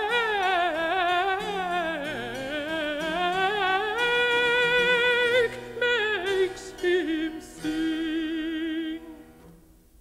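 Countertenor voice singing a baroque song with instrumental accompaniment: a long, wavering run on the word 'wake', then 'makes him sing' on held notes with strong vibrato. The final note ends about nine seconds in and dies away.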